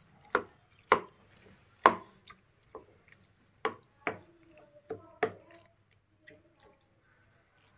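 Wooden spatula stirring boiled macaroni into a wet tomato masala in a kadai: a string of sharp knocks of the spatula against the pan, about nine in five seconds, with wet squelching of the sauce, thinning out near the end.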